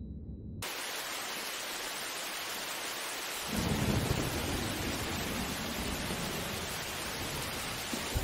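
Heavy rain hissing steadily, coming in suddenly about half a second in, with a low rumble of thunder joining about three and a half seconds in and rolling on through the rain.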